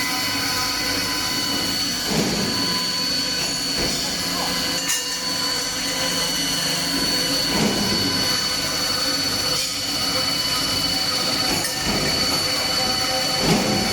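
High-speed steel circular saw blade cutting thick-walled stainless steel pipe: a steady metallic screech with high ringing tones over machine noise, swelling briefly about every five to six seconds.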